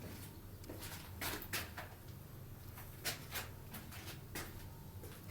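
Faint footsteps scuffing and tapping irregularly on a bare, demolished concrete floor, over a low steady hum.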